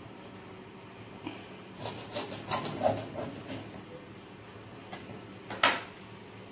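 Hands handling packaging and a utensil on a kitchen counter: a run of short rustles and scrapes in the middle, then one sharp tap near the end.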